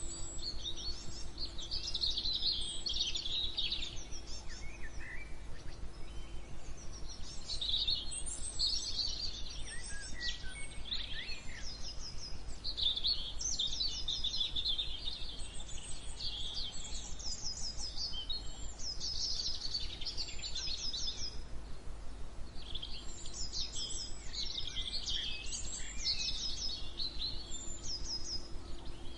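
Several songbirds singing and chirping in overlapping phrases, some in quick trills. Underneath runs a steady low hum.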